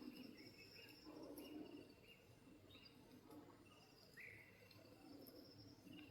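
Faint natural morning ambience: small birds chirping in short repeated notes, with a faint insect trill beneath.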